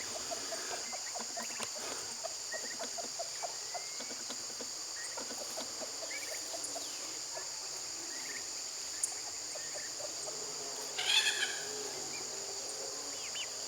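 Steady high insect chorus with poultry calling over it: soft short calls through the first half, one louder call about eleven seconds in, and small chirps near the end.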